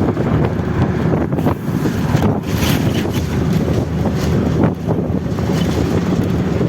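Strong wind buffeting the microphone over the steady rumble of a vehicle travelling along a highway.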